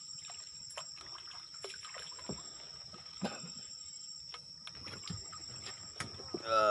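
Night insects chirping in a steady high chorus, with small splashes and trickling water as a man wades and handles a fish net in the water. About six and a half seconds in, a brief loud voice sounds.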